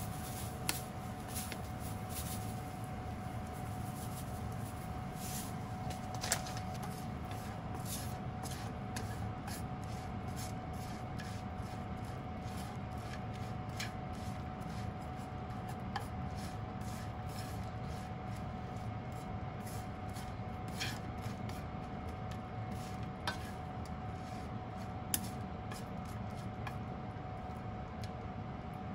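Wooden chopsticks stirring dried baby sardines in a nonstick frying pan: many light clicks and taps against the pan, with a few sharper knocks, over a steady background hum with a faint constant whine.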